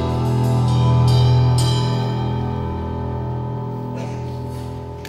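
Live rock band letting its final chord ring out, with a few cymbal strokes in the first two seconds, fading gradually at the close of the song.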